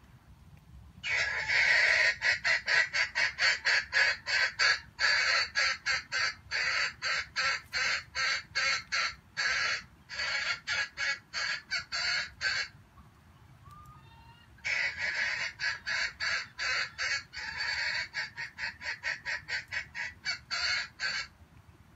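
Junglefowl calling in a harsh, rapid chatter of about three pulses a second, in two long runs with a pause of about two seconds between them.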